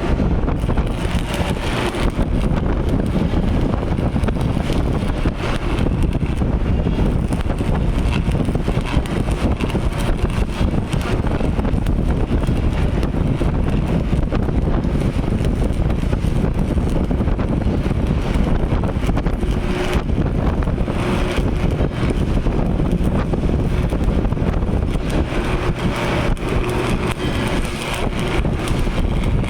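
Arc welder cutting thin galvanized sheet steel: a dense, steady crackle that runs without a break.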